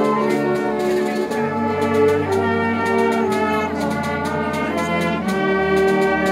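Concert wind band of clarinets and brass playing a slow piece in sustained chords, each held about a second or more before moving to the next.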